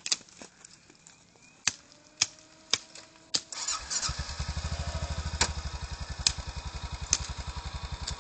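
Honda Rincon ATV's single-cylinder engine starting: a few sharp clicks and a faint rising whir, then about three and a half seconds in the engine catches and settles into a steady, even idle.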